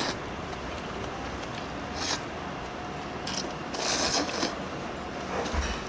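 Noodles being slurped: several short hissy slurps, the longest about four seconds in, over steady background noise.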